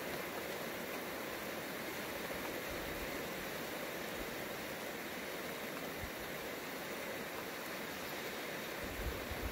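Steady rain falling during a night thunderstorm, an even hiss with no thunder, and a few soft low thumps near the end.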